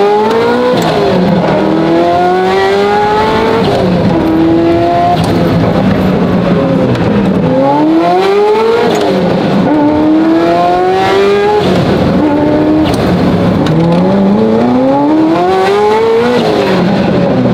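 Ferrari F40's twin-turbo V8 with a custom titanium exhaust, heard from inside the cabin while accelerating hard. The pitch climbs on each of several pulls and drops sharply at each gear change, the last change about sixteen seconds in.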